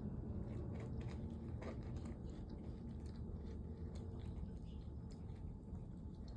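A cat chewing and crunching its food, with many small irregular crunches.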